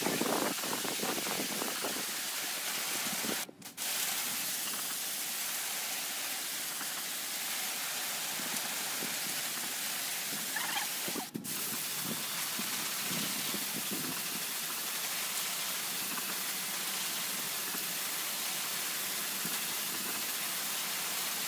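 Pressure-washer jet blasting a moss-stained concrete wall and floor: a steady hiss of spraying water that cuts out briefly twice.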